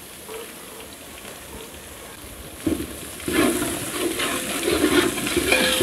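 Onion, moong dal and herbs frying in oil in a large metal pot, a faint sizzle; about two and a half seconds in, a metal ladle starts stirring the mix, scraping against the pot in irregular strokes.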